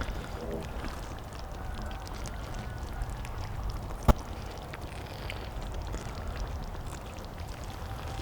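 Cheese dak-galbi sizzling on a cast-iron cauldron-lid griddle: a steady crackling hiss with scattered small ticks, and one sharp click about four seconds in.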